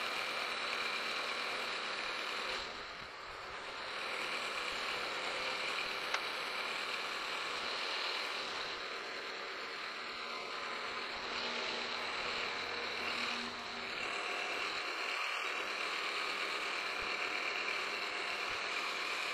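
Precision Matthews PM-727 milling machine running a half-inch roughing end mill through the edge of a half-inch A36 steel plate. It is a steady cutting sound with a high, even whine, easing briefly twice.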